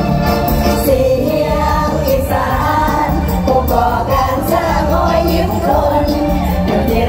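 Live mor lam band music through a loud PA: sung vocals over strong bass and a steady beat.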